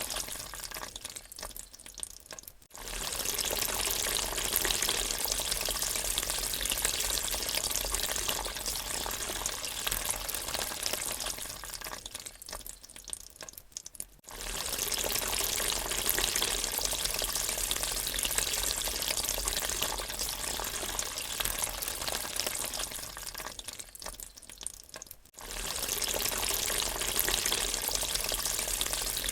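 Water draining with a steady rushing sound that dies away and then starts again abruptly, about every twelve seconds, three times.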